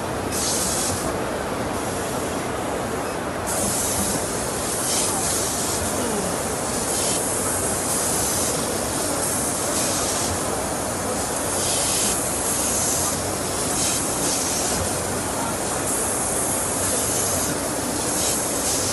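Hissing of compressed air that comes and goes in short bursts every second or two, over a steady machine-hall din.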